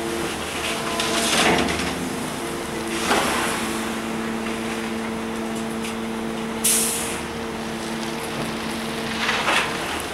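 Kobelco SK160 hydraulic excavator's diesel engine running steadily under load while its bucket digs and dumps crushed rock in an open-top steel gondola car. There are several rushes of gravel scraping and pouring, and a short sharp hiss about two-thirds of the way through.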